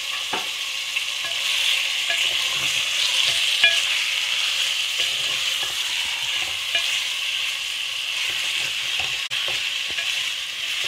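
Chicken pieces and chopped tomatoes sizzling in hot oil in a metal pot as they are sautéed, with a steady frying hiss. A wooden spoon stirs them, giving scattered light scrapes and knocks against the pot.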